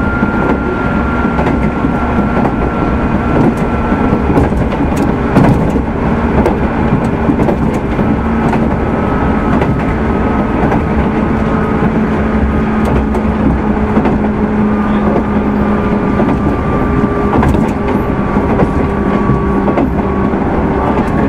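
Running noise of a JR 205 series 600 subseries electric motor car (MoHa 204-602) at speed, with the steady whine of its traction motors, which have externally mounted cooling fans, and gears over a heavy rumble from the wheels. The whine's pitch drifts slowly lower, and there are occasional sharp clicks from the wheels on the rails.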